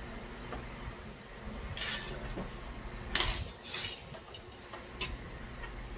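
Tableware clinking and knocking on a table: a cup set down and dishes handled, a few separate clinks with the loudest about three seconds in and a sharp click near the end.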